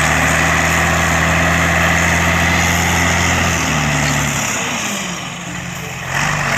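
Truck engine sound effect running steadily. It eases back about four seconds in and picks up again near the end.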